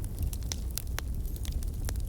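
Campfire crackling: irregular sharp pops and snaps of varying loudness over a steady low rumble.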